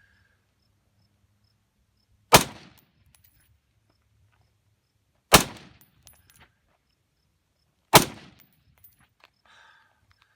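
Three rifle shots from an AR-15-style rifle, about three seconds apart, each with a short echoing tail.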